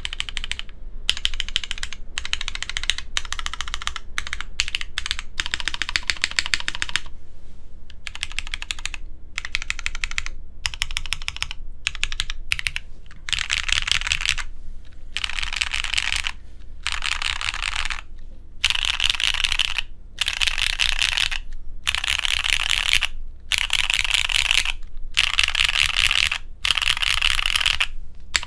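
Fast typing on a J-02 mechanical keyboard with Cherry MX2A Nixie linear switches on an Ultem plate, in bursts of a second or two with short pauses between them, the later bursts louder.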